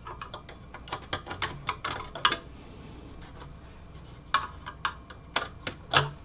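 Small Phillips screwdriver working a screw out of the CPU heatsink housing in a computer case, giving irregular light clicks and ticks in two spells with a brief pause between.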